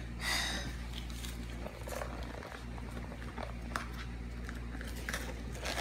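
Toy packaging being opened by hand: a short rustle about a quarter second in, then a few faint clicks of handling, over a steady low hum.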